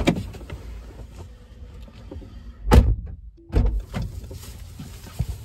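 A car door shutting with a solid thunk about three seconds in, heard from inside the car, amid rustling and a few knocks of someone moving about in the cabin.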